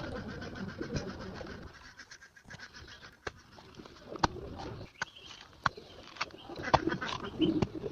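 Doves cooing, with scattered sharp taps and clicks.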